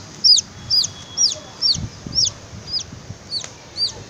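Young chick peeping loudly and steadily, about two high-pitched peeps a second, each a quick note that falls away at its end. The peeping stops near the end.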